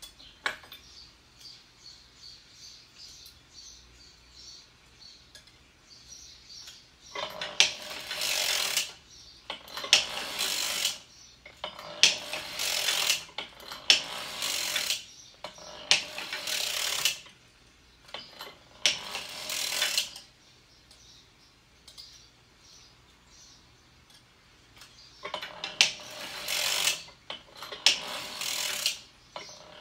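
Hand-cranked circular sock machine knitting, its latch needles clattering through the cam: loud mechanical bursts of a second or so, about every two seconds, starting a few seconds in, with a pause of a few seconds about two-thirds of the way through.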